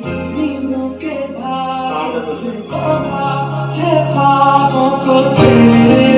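A Hindi song with a male singer playing loudly through a soundbar and its woofer, with sustained bass notes underneath; the bass line shifts about three seconds in and the music swells louder near the end.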